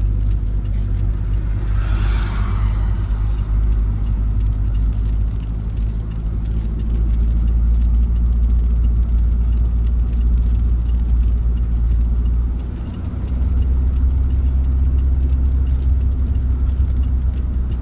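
Motor vehicle running: a steady low engine and road rumble, with a brief rushing hiss about two seconds in.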